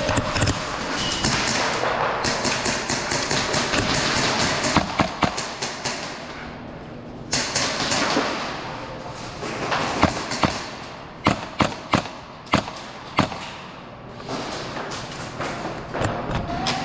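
Airsoft gunfire during a game: scattered single sharp cracks and thuds of shots and BBs hitting cover, at irregular intervals, over a steady rustling noise for the first few seconds.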